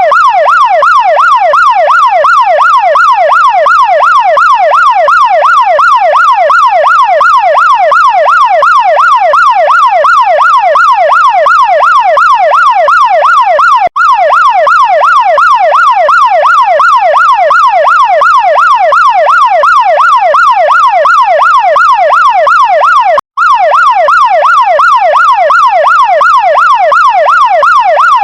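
Chinese fire truck siren in a fast yelp, its pitch sweeping up and down over and over several times a second. It cuts out for an instant twice.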